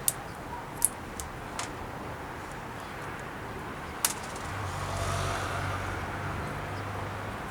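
A few sharp plastic clicks as small jockey-wheel bushes are worked off their moulded plastic tree. In the second half a low hum with a rush of noise swells and eases off.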